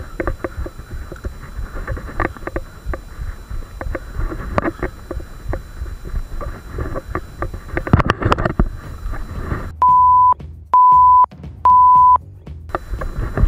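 Wind and water noise on the microphone with scattered knocks and clicks, then near the end three loud, steady electronic beeps, each about half a second long and about a second apart.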